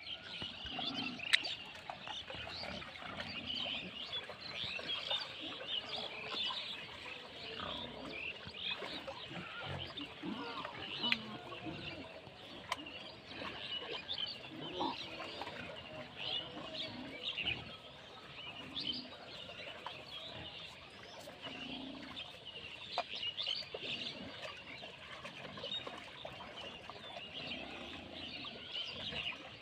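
A herd of pigs wading in a muddy pen, grunting now and then, over a steady background of birds chirping. A sharp click stands out about a second in.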